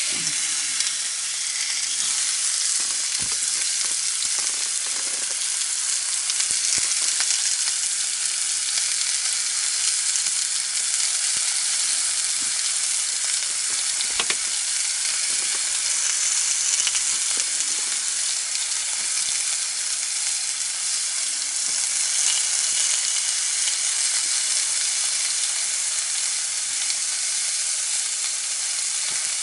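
Meat sizzling steadily on a hot grill plate, the sizzle starting as it goes down, with a few faint ticks now and then.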